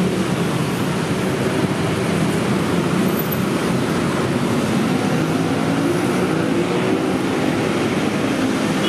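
Steady road traffic noise from cars and motorcycles on a busy city road, with the low drone of engines running.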